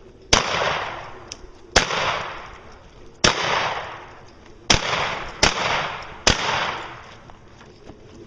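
Six gunshots from a shouldered long gun, unevenly spaced from under a second to about a second and a half apart, each followed by a long echoing tail.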